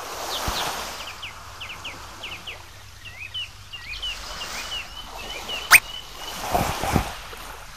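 Cartoon birdsong ambience: many short, quick chirps and then a warbling call. Just before six seconds in comes one sharp, quick rising sweep, and near the end a few short, louder lower sounds.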